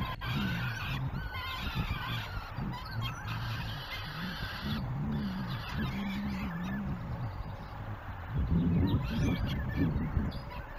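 Peregrine falcon chicks calling while an adult feeds them, a run of harsh, wavering calls that grows louder near the end.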